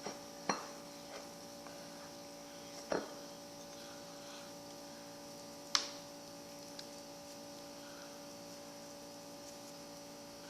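Hand kneading a sticky mixture of dish soap and flour: three short sticky clicks, about half a second, three seconds and six seconds in, over a steady electrical hum.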